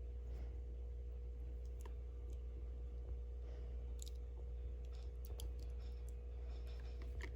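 Scattered small, sharp clicks and taps from items being handled, a few seconds apart, over a steady low electrical hum.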